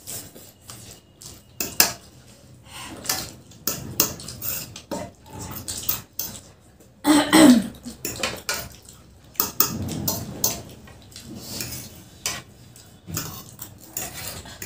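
Forks clicking and scraping against plastic plates as two people eat noodles, with a run of small irregular taps. About halfway through comes one short, louder voice sound falling in pitch.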